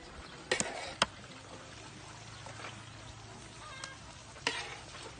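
Faint steady sizzle of fish and pork grilling over charcoal, with a few sharp clicks and knocks: two about half a second in, one at about a second, and one near the end.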